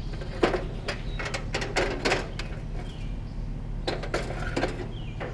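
Metal clanks and rattles, a dozen or so knocks, from a scrapped stove being handled and loaded onto a vehicle, over a steady low hum.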